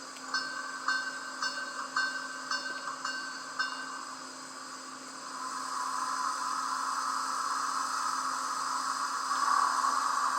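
Sound decoder of a Lenz O gauge Br 86 steam locomotive model playing a run of short metallic clinks about two a second, then a steam hiss that swells from about five seconds in and holds: the locomotive's turbo generator starting up.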